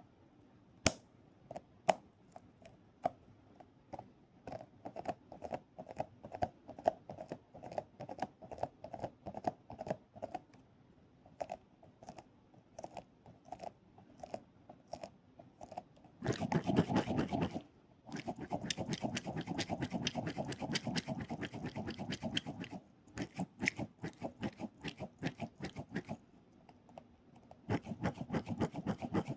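Small toys handled close to the microphone for ASMR: scattered sharp clicks and taps for the first half, then stretches of rapid, crackly squishing and crunching, with a pause a little past the middle and another run near the end.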